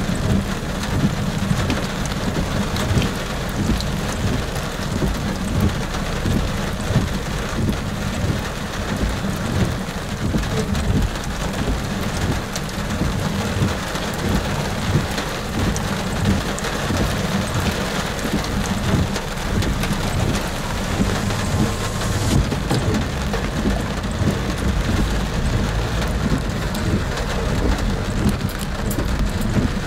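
Steady thunderstorm rain noise, dense and unbroken, strongest in the low end.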